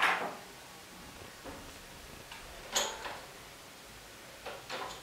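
A few sharp, isolated clicks against faint room tone: a loud one right at the start, one nearly three seconds in, and two in quick succession near the end.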